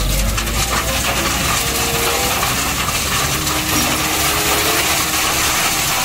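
Gravel pouring out along the side of a dump truck's body onto a heap: a dense, continuous rattle and hiss of stones over a low rumble.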